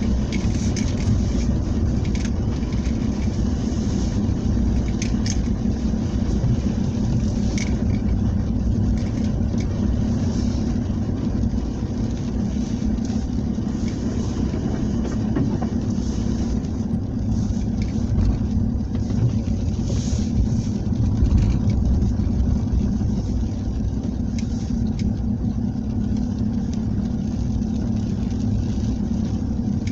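A vehicle engine running steadily, a continuous low drone with no marked revving.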